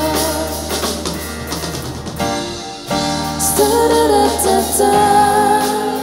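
Live band music: drum kit and acoustic guitar with singing, the band dropping back briefly about two seconds in before coming in again.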